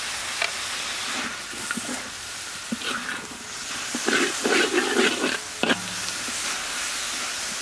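Ginger, garlic and spring onion sizzling in hot oil in a wok, with a metal spatula scraping and clacking against the wok as they are stir-fried, the scraping mostly in the second half.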